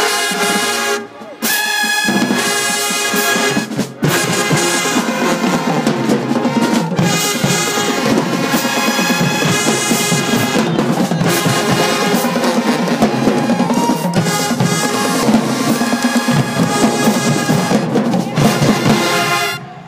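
School marching band playing: trumpets, trombones, saxophones and sousaphones over marching snare and tenor drums. It breaks off briefly twice in the first few seconds, then plays on steadily and stops abruptly at the end.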